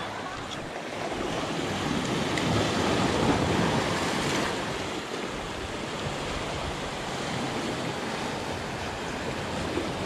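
Sea surf washing in and breaking over rocks along a rocky shore, swelling louder a couple of seconds in and then easing back.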